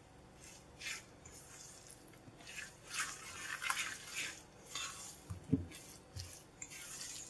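Silicone spatula stirring wet grated carrot batter in a stainless steel bowl: irregular soft squelching and scraping strokes, with one brief low bump about two-thirds of the way through.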